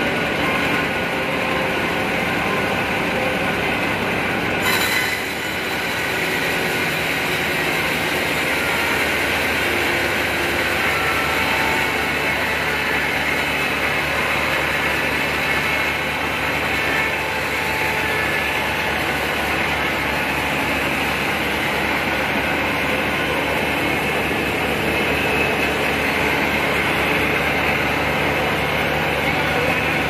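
Vertical band sawmill running and cutting through a very large log: a steady, loud mechanical din of the blade in the wood over the hum of the saw's drive. A brief sharp noise comes about five seconds in.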